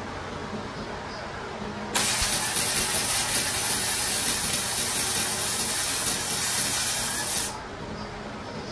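Electric arc welding on the steel axle housing of a Ford 9-inch rear end: one steady hissing run of about five and a half seconds, starting sharply about two seconds in and cutting off suddenly.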